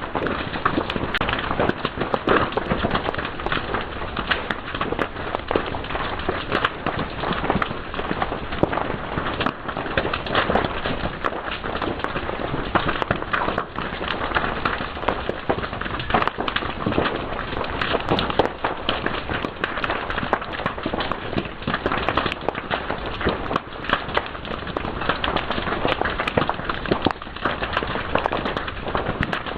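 Fire crackling and popping steadily, with many sharp irregular snaps over a constant hiss.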